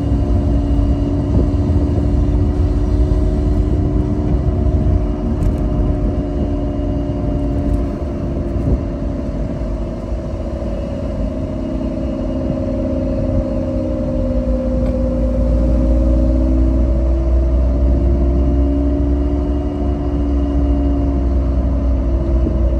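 Honda S2000 driving with a whine from the rear differential over engine and road rumble, its pitch slowly rising and falling with road speed. The owner suspects a chipped or blown differential.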